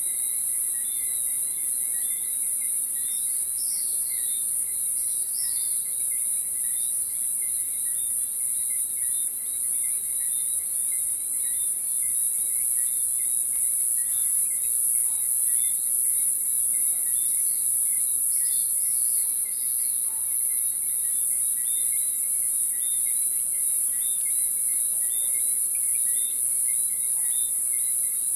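Chorus of crickets and other insects: a steady, shrill, high-pitched drone, with short chirps repeating about once a second and a couple of brief clusters of rising calls.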